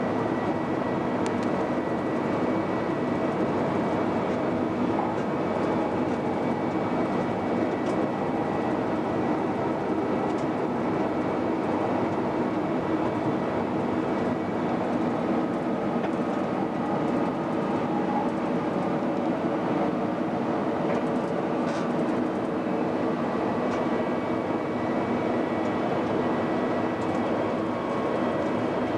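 Queensland Rail Electric Tilt Train heard from the driver's cab while running at speed: a steady running rumble under a constant hum of several held tones, with a few faint clicks.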